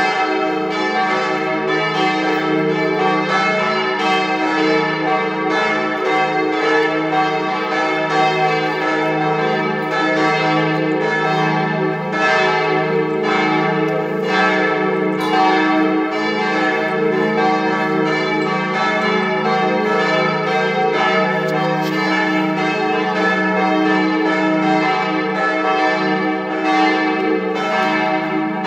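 A partial peal of church bells: several tower bells ringing together, their strokes overlapping in a steady, unbroken stream.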